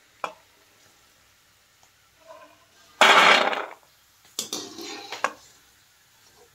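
Fried almonds and a wire skimmer clattering on steel cookware as the almonds are lifted out of the kadhai and tipped onto a steel plate: a single click about a quarter second in, a loud rattling clatter about three seconds in lasting under a second, then a spell of lighter clinks and rattles.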